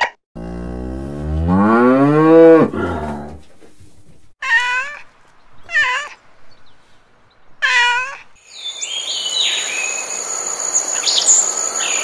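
A cow moos once, a long low call that rises and falls in pitch, then a kitten meows three times. In the last few seconds there are high chirps over a steady high tone.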